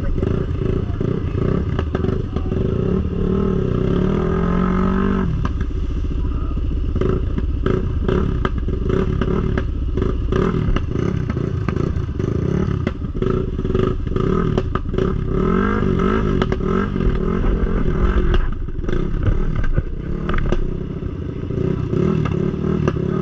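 ATV engine running, its revs rising and falling a few seconds in and again past the middle, with scattered knocks and clatter.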